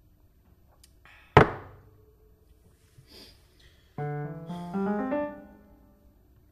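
Piano film score: a sudden loud struck hit about a second and a half in that rings away, then from about four seconds a quick descending run of piano notes that fades out.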